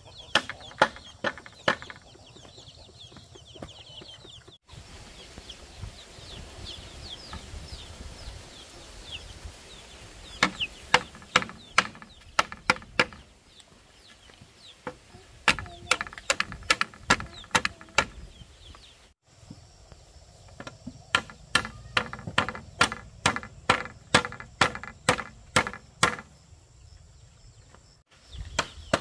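Runs of sharp tool strikes on wood or bamboo, a few a second with short pauses between runs, while high bird chirps sound in the first part.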